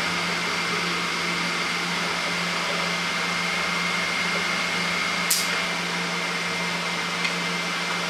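Elegoo FDM 3D printer running, its fans making a steady hiss with a low hum and a thin high tone. There is one brief click about five seconds in.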